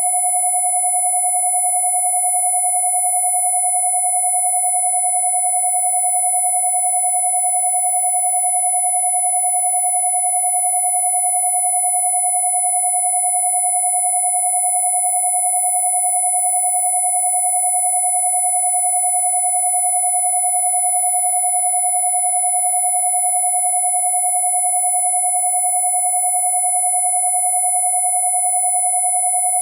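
Two steady electronically generated sine tones sounding together: a strong 727 Hz tone and a very high, thin 10,000 Hz whine, with faint fainter overtones, unchanging throughout.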